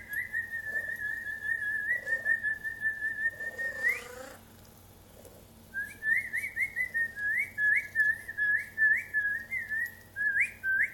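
Person whistling a bird imitation: a long held whistle for about four seconds, a short break, then a quick run of short upward-flicking chirps, about two a second.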